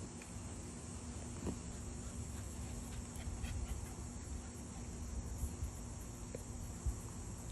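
Steady high-pitched background hiss or chirring with a low steady hum, and a couple of faint knocks.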